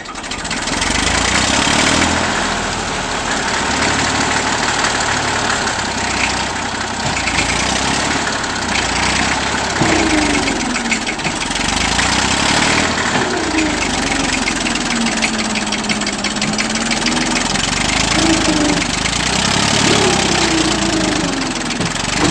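Old Massey Ferguson tractor engine running under load, catching and coming up to speed right at the start. Its engine speed rises and falls several times, with a rapid clatter over the steady running.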